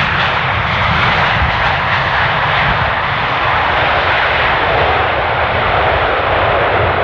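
Jet aircraft engines, a loud steady rush of noise over a low rumble.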